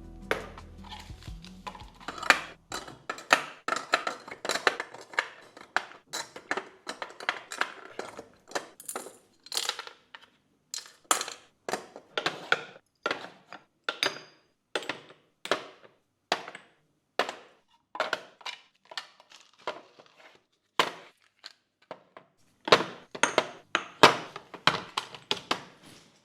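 A long run of irregular clinks, clacks and knocks as hard household items are handled and set down one after another, with short quiet gaps between them.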